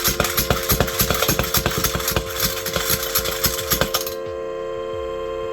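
Tin humming top with a corkscrew plunger being pumped: the plunger clatters rapidly for about four seconds, then stops suddenly and the spinning top gives a loud, steady, whistle-like hum of several tones together.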